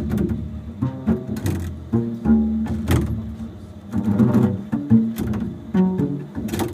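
Solo double bass played in short, broken bowed and plucked low notes, punctuated by several sharp percussive clicks.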